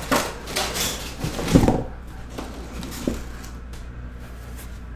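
Cardboard boxes being lifted out of a shipping case and set down on a table: a cluster of knocks and scrapes in the first two seconds, then a couple of light taps.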